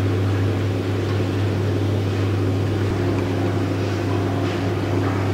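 Electric centrifugal pump running with a steady hum, circulating wort through the sight glass while the mash is recirculated until the wort runs clear.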